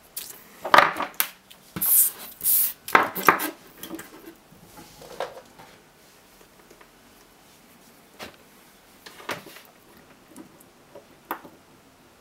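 Panasonic CGR18650CE 18650 cells clinking and knocking against one another and the tabletop as they are handled and set in a row, with a rustle of paper. After about four seconds it goes quiet apart from a few scattered light clicks.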